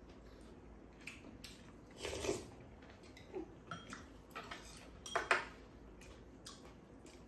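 Spoons and chopsticks clicking and scraping against ceramic bowls as two people eat: scattered light taps, a louder scrape about two seconds in and the loudest clinks a little past five seconds in.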